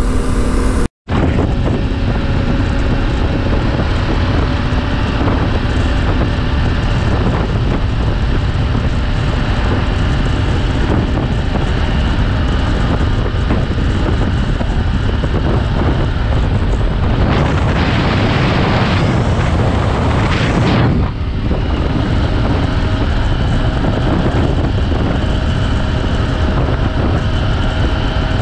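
Wind rushing and buffeting over an unshielded microphone, its adapter just removed, while a 790 Adventure motorcycle is ridden at highway speed (about 115 km/h), with the engine under the wind. The sound drops out completely for a moment about a second in, and a harsher hiss swells and fades about two-thirds through.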